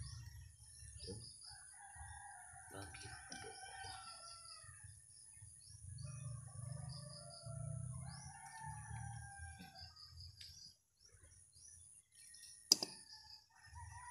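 A rooster crowing twice, each crow about three seconds long, with small birds chirping in the background. A single sharp click near the end.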